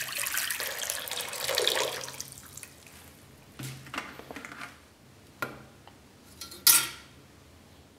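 Liquid poured in a stream into a shallow enamel tray, splashing steadily and stopping about two seconds in. A few single drips follow, then a louder splash near the end as the rusty knife blade goes into the vinegar soak.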